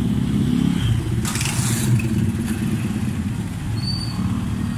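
Motorcycle engine running steadily while riding, heard from the rider's seat, with a brief rush of hiss about a second and a half in.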